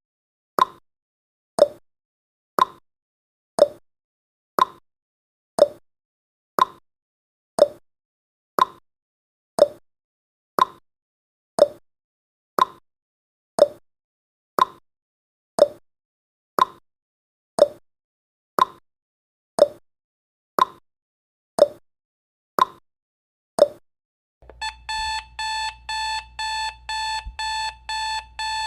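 Countdown timer's tick sound effect, one sharp tick each second, stopping about 24 seconds in as the count reaches zero. Then a digital alarm-clock beeping starts, rapid, evenly spaced beeps at one steady pitch, several a second.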